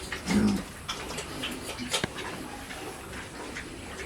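A pig gives a single low grunt shortly after the start, followed by a sharp click about two seconds in, over low pen noise.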